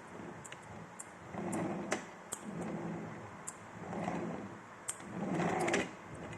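Toy remote-control car's small electric motor and gears whirring in four short bursts of about a second each, with scattered sharp clicks between them.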